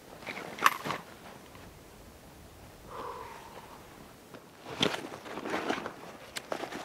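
Footsteps crunching on the forest floor, in two spells of uneven steps with a quieter gap between them. About three seconds in there is a short, falling low tone.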